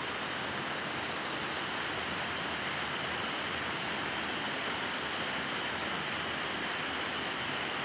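Spring-fed stream running over rocks in small cascades: a steady, even rush of water.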